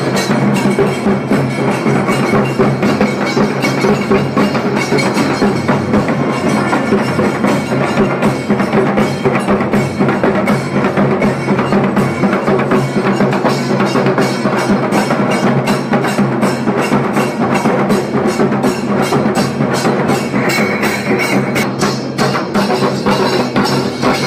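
Kailaya vathiyam temple ensemble: barrel drums beaten with sticks in a fast, dense rhythm over the steady held drone of long brass horns. A higher held note joins briefly near the end.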